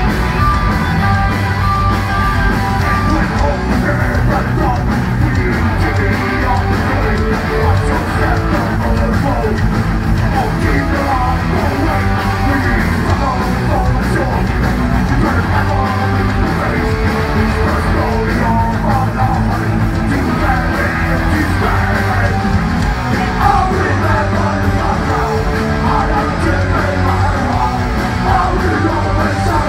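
Punk rock band playing live with electric guitars, bass, drums and vocals, recorded from the audience.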